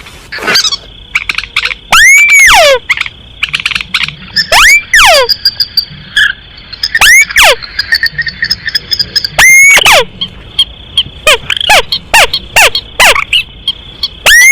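Hunting-lure recording of common moorhen and crake calls. A loud call that rises and falls in an arch repeats every two to three seconds, with rapid runs of short clicking notes in between; the loudest calls distort.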